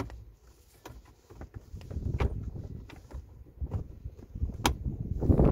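Hard plastic clicks and knocks as a van's gear-lever gaiter ring is pressed and snapped into its plastic console surround, over a low rumble that rises about two seconds in. The sharpest click comes near the end.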